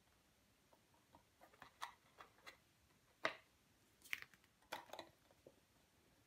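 Faint handling sounds of paper and cardstock: a scatter of light taps and rustles as a finished folded-cardstock box and a loose sheet of paper are moved about on a craft mat, the loudest tap a little after three seconds in.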